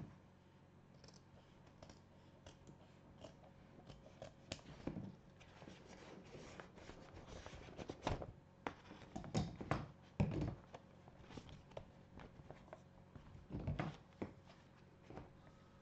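Rustling and crinkling of a white paper-like embroidery stabilizer sheet and felt being handled by hand, with scattered light taps; the loudest rustles come in a cluster about halfway through and again near the end.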